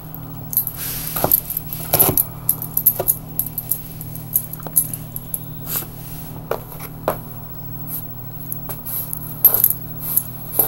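Dog tearing and licking at a greasy cardboard pizza box: irregular scrapes, crackles and snaps of cardboard, over a steady low hum.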